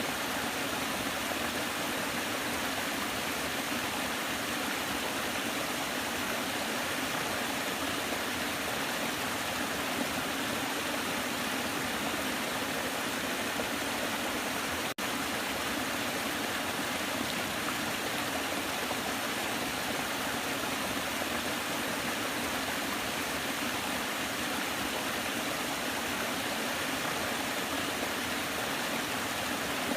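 Waterfall: a steady, even rush of falling water, broken by a split-second dropout about halfway through.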